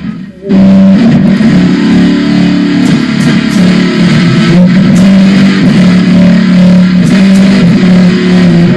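Very loud electric guitar music, strummed chords with a bass line, pushed near full level as a speaker-straining sound effect. It drops out briefly at the start and comes back at full level about half a second in.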